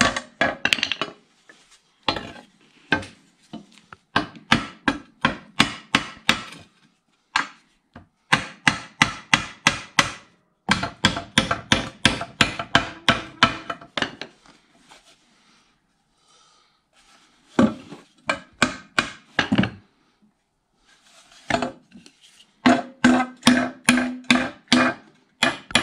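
Ball-peen hammer striking a steel lower control arm, driving a new rubber suspension bushing into it, in runs of quick ringing blows about three a second with short pauses between them.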